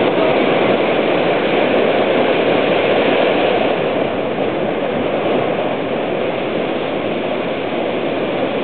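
Steady rushing noise of ocean surf mixed with wind, easing a little about halfway through.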